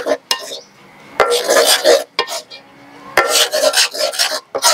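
Metal spoon scraping and clinking against a metal pot, stirring green curry paste as it fries in coconut cream that has split its oil. It comes in bouts about two seconds apart.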